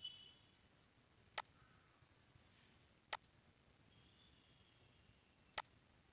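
Three sharp computer mouse clicks a couple of seconds apart, over near silence.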